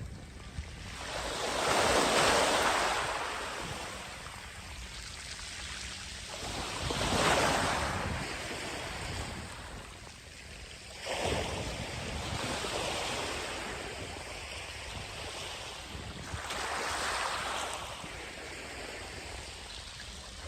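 Sea waves breaking on a sandy beach, the surf swelling and fading about every five seconds.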